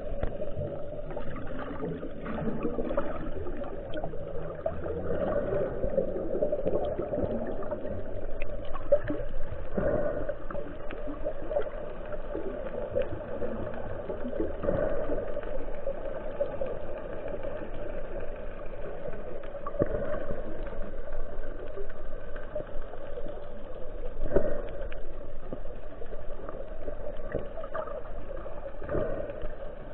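Muffled water sloshing and gurgling, with an occasional knock.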